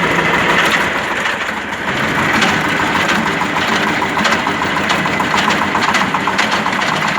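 Tractor engine running with the PTO engaged and driving a sickle-bar mower, with a fast knocking rattle that appears only under the PTO load; the owner traces it to inside the gearbox, not the belts, and that part of the gearbox runs hot.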